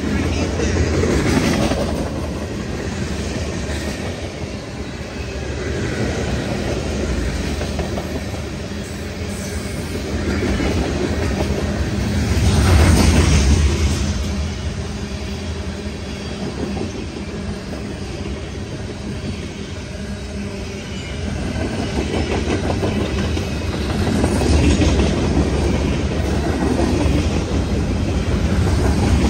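Freight cars of a Union Pacific manifest train rolling past at close range: a steady noise of steel wheels on rail that swells louder about a dozen seconds in and again near the end.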